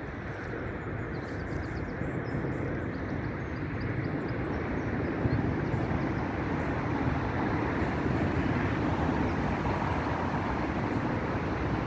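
Steady rushing noise of fast-flowing floodwater around someone standing waist-deep in it, swelling slightly.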